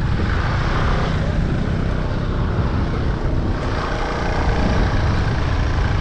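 Motorcycle engines running steadily as the bikes ride along a muddy dirt track, with a dense low rumble of wind buffeting the microphone.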